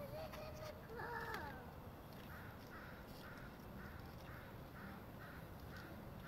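Birds calling: one harsh pitched call about a second in, then a run of short repeated calls about two a second, over a low steady background rumble.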